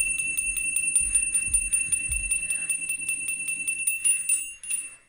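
Homemade motor-driven electric bell: a small electric motor, belted to a spinning striker, hits a brass bell dome rapidly, several strikes a second, over a low motor hum. The strikes slow after about four seconds and the ringing stops just before the end.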